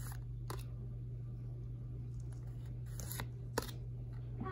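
Pokémon trading cards being handled and slid one off the front of the stack to show the next: a few short papery swishes and clicks, the sharpest about three and a half seconds in, over a steady low hum.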